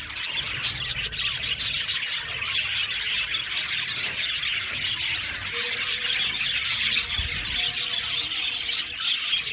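A flock of budgerigars chattering and chirping, many short high calls overlapping without a break.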